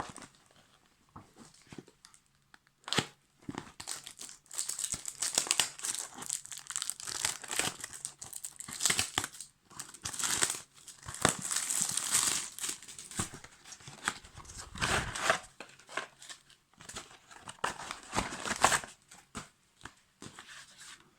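Product packaging being opened by hand: crinkling and tearing in irregular bursts, with a few light clicks before it starts about four seconds in.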